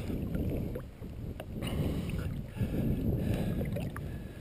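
Wind buffeting the microphone as an uneven low rumble, with a few light clicks.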